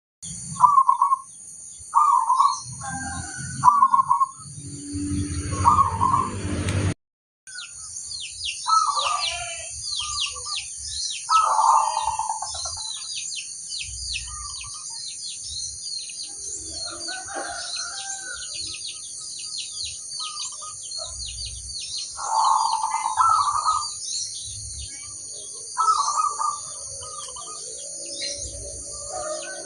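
Zebra doves (perkutut) cooing in short repeated phrases, over many small birds chirping high and fast, with a steady high whine behind. The sound drops out for a moment about seven seconds in.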